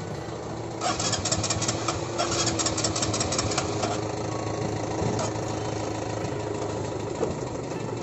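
Small motorcycle engine running steadily, with a burst of rapid clicking or rattling from about one to three and a half seconds in.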